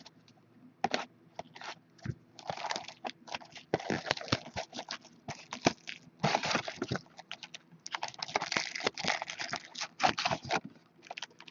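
Plastic shrink-wrap crinkling and tearing, with cardboard rustling, as a sealed box of Pinnacle hockey cards is unwrapped and opened. It comes as a run of short rustles and clicks with brief pauses.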